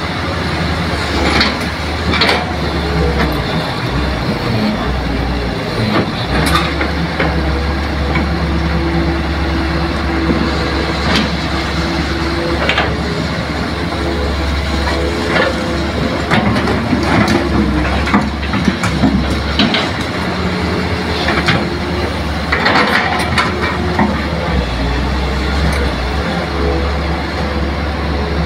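Diesel engine of a Hitachi hydraulic excavator running steadily under load while it loads soil into a dump truck, with sharp knocks and clanks every few seconds as the bucket works and drops its load.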